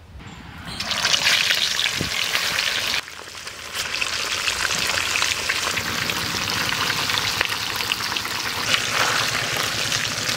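Pieces of silver carp deep-frying in plenty of hot oil in a kadai, a steady bubbling sizzle. It starts loud about a second in, drops briefly around three seconds, then carries on evenly.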